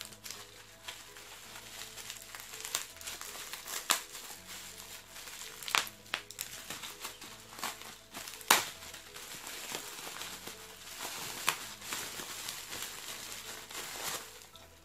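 Plastic bubble wrap crinkling and rustling as it is handled and pulled open, with many sharp crackles, the loudest a little past halfway through.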